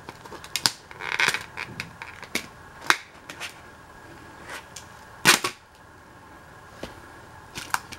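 Hard clear plastic blister packaging being pried and bent open by hand, giving scattered sharp clicks and crackles, the loudest snap about five seconds in.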